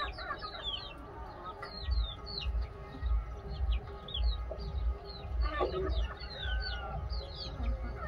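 Free-range chickens calling: many short, high peeps falling in pitch, several a second, with a few lower clucks among them.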